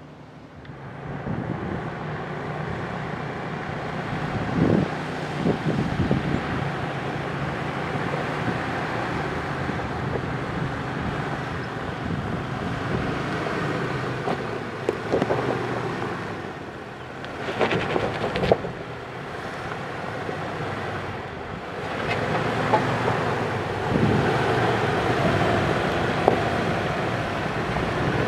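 Jeep Wrangler Unlimited Rubicon's 4.0-litre straight-six running at low speed as it crawls over a rocky trail, mixed with wind rushing on the microphone. A few sharp bumps stand out, and it grows louder near the end as the Jeep comes close.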